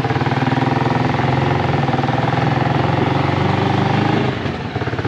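Small motorcycle engine running as it rides along, with an even firing pulse. It eases off about four seconds in.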